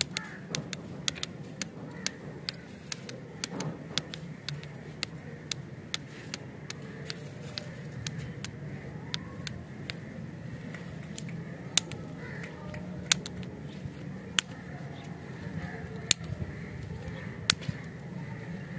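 Wrapped lollipops being handled: irregular sharp clicks and crackles of plastic wrappers and plastic sticks, a few of them louder in the second half, over a steady low hum.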